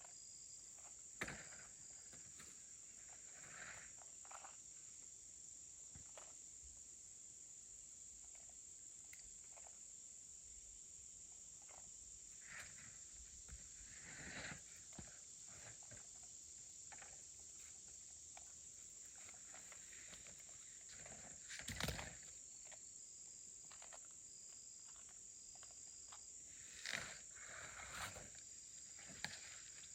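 Insects calling in a steady high-pitched chorus outdoors, with scattered soft knocks and brief chirps, the sharpest knock about 22 seconds in.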